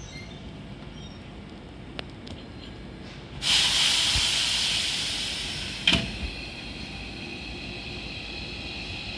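A Hankyu 7000 series train lets out a sudden loud hiss of compressed air about three and a half seconds in, which fades over the next few seconds. A sharp clunk comes near the six-second mark, and faint high tones hang on after it.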